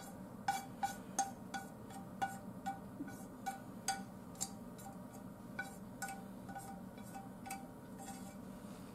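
Wooden chopsticks tapping and scraping against a non-stick frying pan as the last fried udon is pushed out onto a plate. Light taps, each with a short ring, about two to three a second, with a pause about halfway through and stopping shortly before the end.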